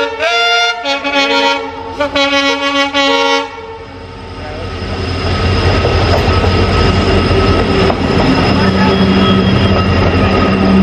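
Train horn sounding in several blasts over the first three and a half seconds, followed by the rumble of a train growing louder about four seconds in and staying loud as it runs along the track.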